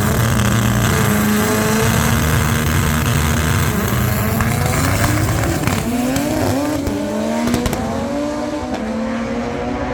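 Honda Civic drag cars running a full-throttle pass at high revs. The engine pitch climbs and drops back at each gear shift, and the sound eases off near the end as the cars get further away.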